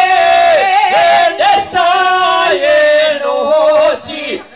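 A man and a woman singing a slow folk song together into microphones. They hold long, wavering notes in two-part harmony and break off briefly near the end.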